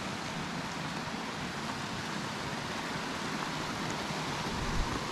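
Steady rushing of a mountain stream running over rocks, with a brief low thump near the end.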